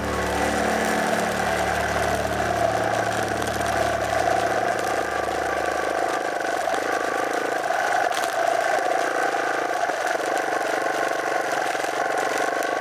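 Dirt bike engine running at a fairly steady speed while riding over gravel; the deep low hum underneath drops away about halfway through.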